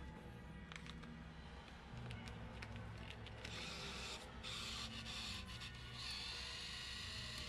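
Faint motor whirring and rubbing as the bill acceptor of a banknote-to-coin change machine draws in a paper note, growing more noticeable from about halfway through.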